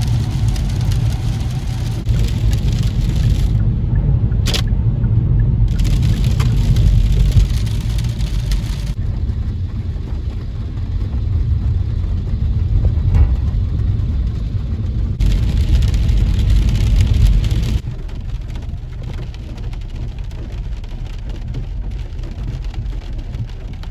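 Car road noise heard inside the cabin while driving: a steady low rumble that drops off sharply about three-quarters of the way through.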